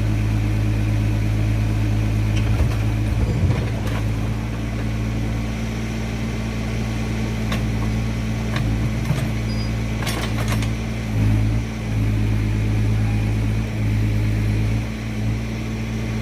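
Heavy vehicle's engine running steadily at an even pitch, with a few sharp clicks and knocks over it in the first ten seconds or so.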